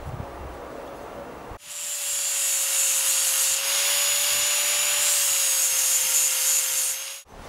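Handheld angle grinder running with a steady whine, its disc grinding a small rusted metal part of an antique iron. It starts abruptly about one and a half seconds in and cuts off shortly before the end.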